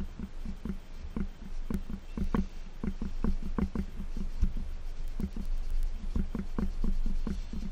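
A scouring sponge scrubbed back and forth along the metal exhaust header pipes, about three rubbing strokes a second.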